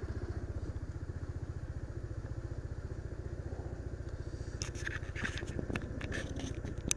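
Small motorbike engine idling with a steady, even beat; in the last two seconds a run of sharp clicks and rattles sounds over it.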